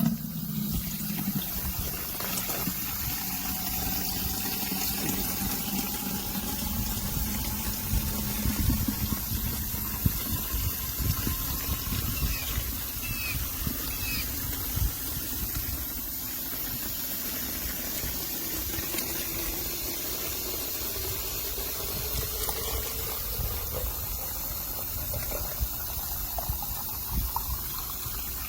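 Water from a garden hose running through a flow meter into a container, starting suddenly and rushing steadily. A faint tone rises slowly in pitch as the container fills.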